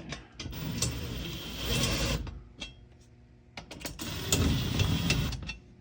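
Power drill with a socket adapter driving a bolt into the wall in two runs of about two seconds each, with a short pause between. The bolt seems not to be catching right in the wall.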